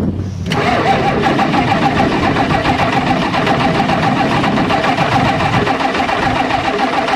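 Old Ford F250 diesel being cranked over by its starter in a steady, even rhythm, starting about half a second in. The engine does not catch: it has sat unstarted for a while and is being cranked after the glow-plug wait without firing.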